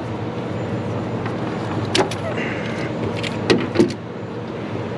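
A few sharp metallic clicks and clinks from popping the retaining clip off a transmission cooler line fitting at the radiator: one about two seconds in, then a brief scrape, then three more clicks around three and a half seconds. A steady low hum runs underneath.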